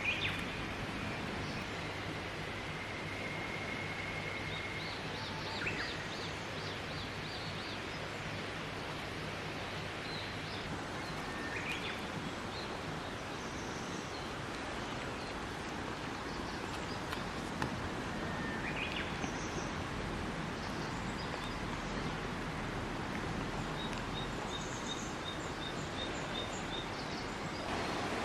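Steady rush of a river with birds calling over it: short rising chirps every several seconds and two quick runs of high, repeated notes.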